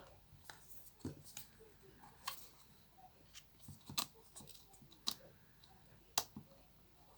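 Scattered clicks and small handling noises of earphone packaging being opened by hand, with three sharp, louder clicks spaced about a second apart in the second half.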